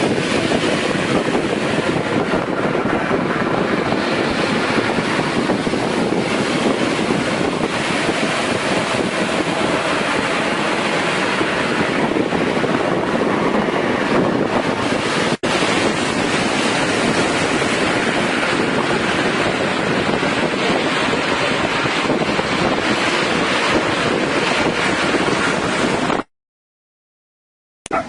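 Heavy surf and strong wind buffeting the microphone in a sea storm, a steady loud roar of noise. It breaks off for an instant about halfway, and drops to dead silence for about a second and a half near the end.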